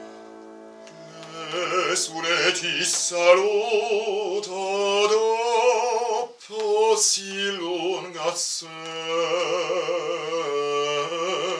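Bass-baritone singing an operatic aria with a wide vibrato, accompanied by a grand piano. Piano chords sustain softly for about the first second before the voice comes in.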